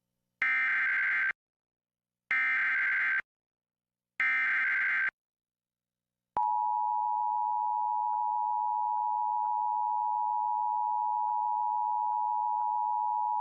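Emergency Alert System SAME header: three bursts of screechy digital data tones, each about a second long with about a second of silence between, encoding the alert. About six seconds in, the EAS two-tone attention signal (853 and 960 Hz together) starts and holds steady, signalling that an emergency message follows.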